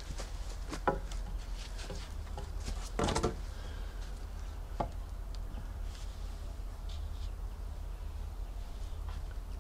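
Wooden knocks and a scraping clunk as a log is set as a crossbeam on the crossed tops of wooden tripod poles. The loudest is a short rough clunk about three seconds in, with a few sharper single knocks before and after it, over a steady low rumble.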